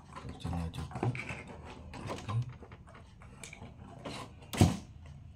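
Hands handling a cardboard box and a USB charging cable: irregular small clicks, taps and rustles of cardboard and plastic, with one sharp louder click about four and a half seconds in.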